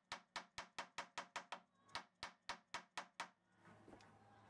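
A fret being driven into a guitar fingerboard: quick, sharp knocks, about four a second, of a hammer striking a wooden 12-inch-radius fret caul held over the fret. The knocking stops a little over three seconds in and soft music follows.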